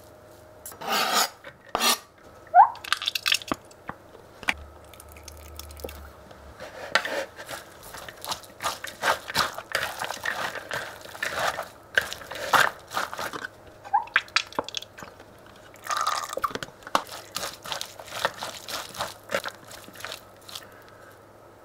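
Forks scraping and tearing imitation crab sticks on a cutting board, then wooden chopsticks tossing a salad of shredded cabbage, carrot, cucumber, ham and crab stick in a glass bowl. The tossing is wet squishing with rapid clicks and taps of the chopsticks against the bowl.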